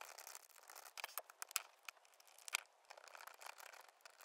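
Faint, irregular small clicks and scratches of a precision screwdriver working the pentalobe screws in the bottom edge of an iPhone X's metal frame.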